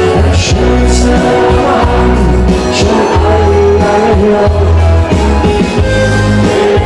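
Loud live party-band music through a PA, with a heavy bass and a crowd of people singing along.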